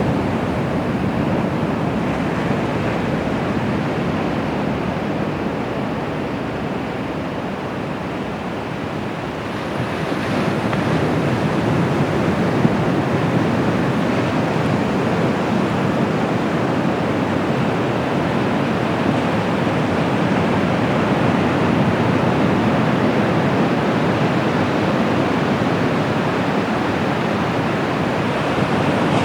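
Bay of Bengal surf washing onto the beach: a steady rush of breaking waves that eases a little, then swells again about ten seconds in.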